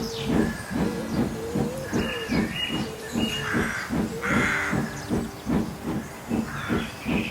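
Steam locomotive chuffing steadily at about four chuffs a second, with short bursts of steam hiss about three and four seconds in.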